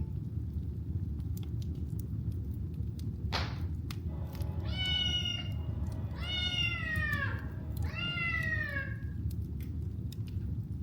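Wood fire crackling over a steady low rumble, with a cat meowing three times from about four seconds in, each meow about a second long and falling in pitch.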